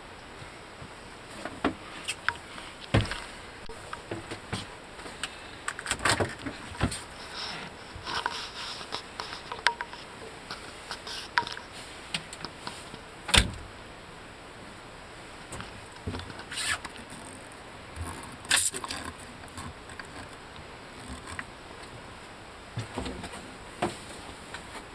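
Scattered knocks, clicks and rustles of handling, the loudest a single sharp knock about halfway through.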